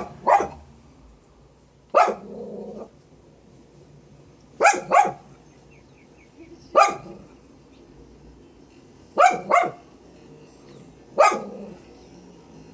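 A dog barking in short, sharp barks, some single and some in quick pairs, one every two to three seconds, about nine in all.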